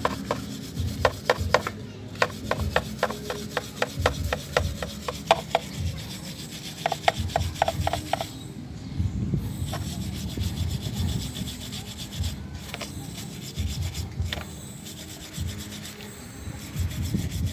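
Steel wire brush scrubbing a rusty motorcycle drive chain, with gasoline as the cleaner, to strip the rust. The strokes come in a quick, regular run for the first few seconds, then turn into rougher, more continuous scrubbing.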